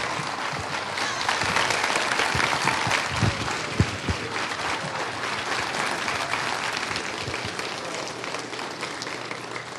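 Audience applauding, a dense spread of many hands clapping that slowly dies down toward the end.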